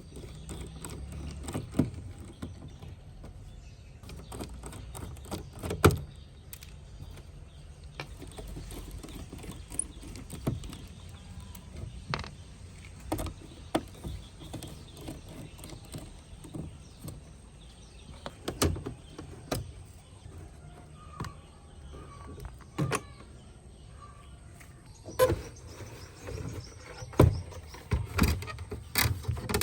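Irregular clicks and knocks of hand work on a cassette tape deck's parts, with a low rumble beneath.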